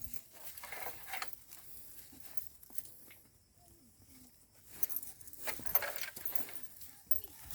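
Irregular rustling and crunching with scattered clicks. It fades about three seconds in and picks up again near the five-second mark.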